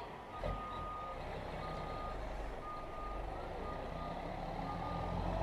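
Semi truck's backup alarm beeping about once a second over its diesel engine running, the engine growing louder near the end.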